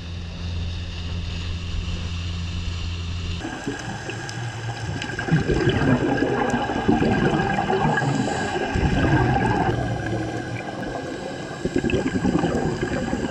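A boat's motor runs steadily with a low hum for about three seconds, then the sound cuts to underwater: a scuba diver's exhaled bubbles gurgling and streaming, with crackling underwater noise.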